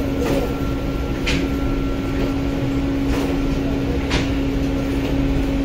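Steady hum and rumble of running bakery machinery, with a short sharp tick or hiss every second or two.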